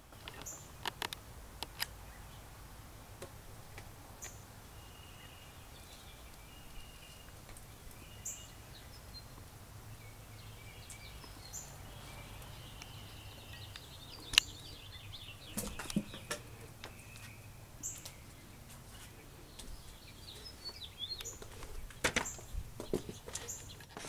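Quiet outdoor ambience with faint songbird calls in the background and a few sharp clicks and knocks, the loudest about halfway through and near the end.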